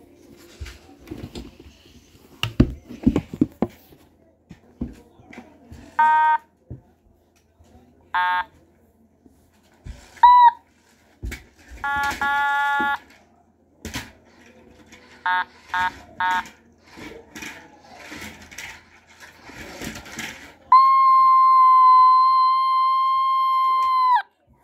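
Otamatone playing a handful of short electronic notes, one sliding up into its pitch, then one long steady held note of about three and a half seconds near the end. Handling knocks and rustles come before the first note.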